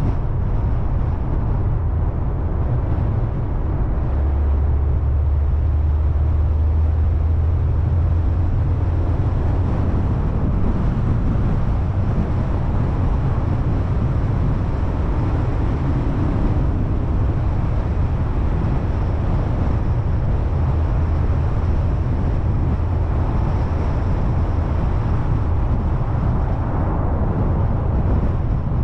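Car driving on a paved road: a steady low rumble of engine and tyres, with a low drone joining in about four seconds in.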